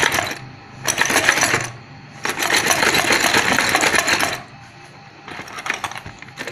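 Small metal sewing-machine parts (bolts, screws and brackets) rattling and clinking against each other inside a cut-open plastic jerry can as it is shaken, in three bursts and a fainter one near the end.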